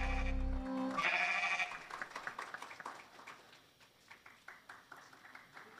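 Children's choir song ending on a held chord with accompaniment that stops under a second in. A short high note from the children's voices follows, then scattered, light clapping.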